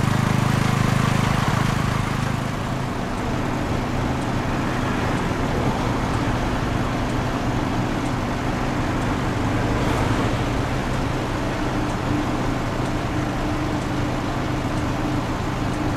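A parked fire engine's engine running steadily at idle close by, a constant low drone with a hum, a little louder in the first two seconds or so.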